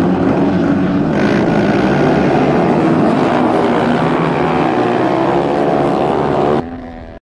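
Racing motorcycle engines running loud at high revs, their pitch wavering slightly. The sound drops suddenly near the end and then cuts off.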